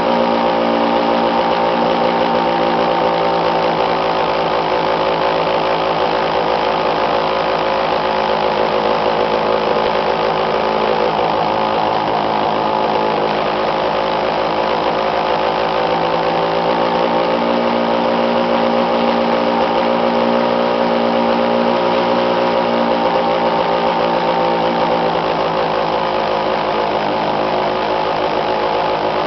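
Go-kart engine running steadily while under way, its pitch drifting slightly up and down.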